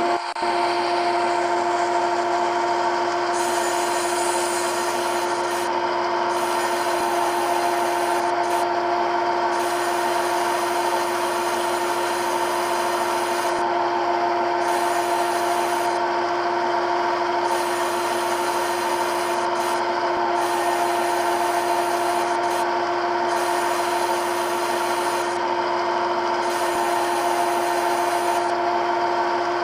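Simulated CNC lathe machining sound from a lathe simulator app running a program: a steady spindle hum with constant tones under a continuous cutting hiss. The top of the hiss drops out briefly every few seconds.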